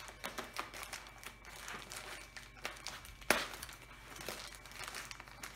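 Plastic bubble-mailer sleeve crinkling and crackling as it is handled and cut open at one end with scissors, with one sharp click a little past the middle.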